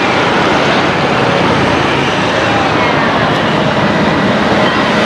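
Street traffic: motor scooters and cars passing close by, a steady loud mix of small engines and tyres on the road.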